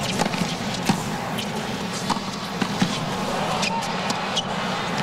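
Tennis ball struck back and forth by rackets in a hard-court rally, sharp pops roughly every half second to second as it is hit and bounces on the court, over a steady background hum from the stadium crowd.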